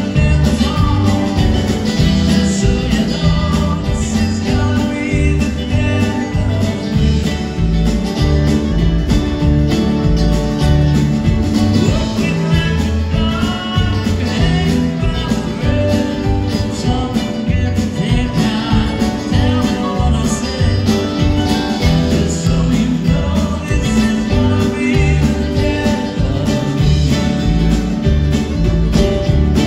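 Live band playing a country-tinged song with a steady beat: acoustic guitar, upright bass, keyboards and drums, with a man singing lead.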